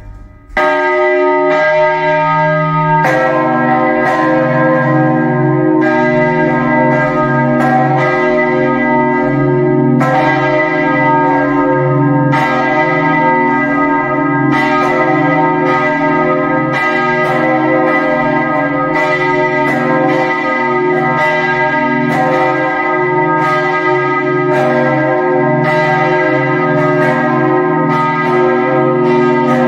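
Church bells swinging and ringing, heard close up inside the belfry. One bell starts about half a second in, and a second bell with a lower tone joins about three seconds in; the two ring on together with repeated strikes.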